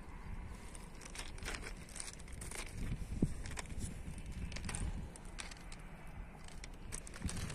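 Footsteps crunching on the crushed-stone ballast of a railway track, in irregular crunches over a low steady rumble.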